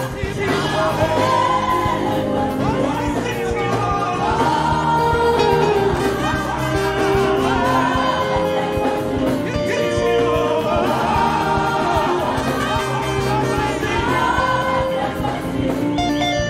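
Live gospel worship music: a church band playing with voices singing long, held notes over it.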